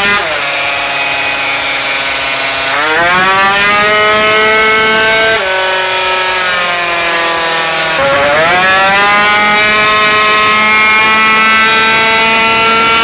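188cc twin-cylinder racing scooter engine at full throttle on a dyno, revving through its CVT variator: twice, about three and eight seconds in, the pitch climbs quickly and then holds steady and high, settling lower in between.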